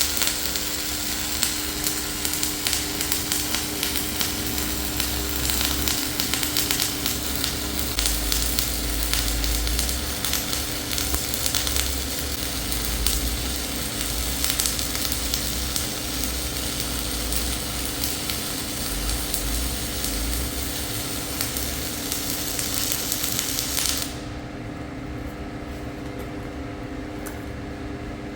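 Gas-shielded flux-cored arc welding with 1.2 mm CIG Verticore wire: a steady crackling, sizzling arc that stops abruptly about four seconds before the end, leaving a steady hum.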